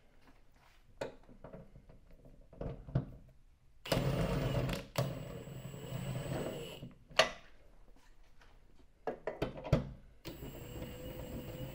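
Powered ratchet running in short spells, with a steady motor whine, as it drives in the bolts holding the compressor mounting bracket to the rear door. A few clicks and knocks of the fitting and tool fall between the spells.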